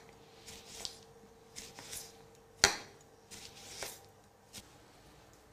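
Chef's knife slicing an onion into thin rounds on a white plastic cutting board: a few irregular cuts, each a short scrape ending in a light tap of the blade on the board, with one sharper knock about two and a half seconds in.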